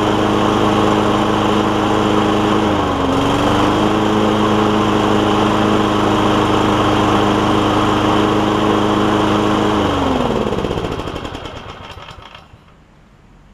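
Kawasaki engine of a Toro commercial walk-behind mower running steadily on its freshly cleaned carburetor, with a brief dip in speed about three seconds in. About ten seconds in it is shut off and winds down to a stop.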